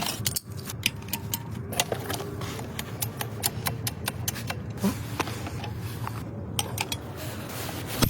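Scattered light clicks and taps, irregular and of varying strength, over a low steady hum.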